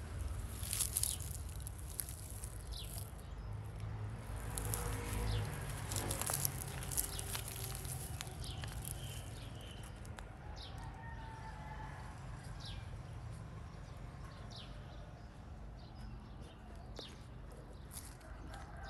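Outdoor ambience: a low steady rumble with scattered short, high bird chirps and a few faint clicks.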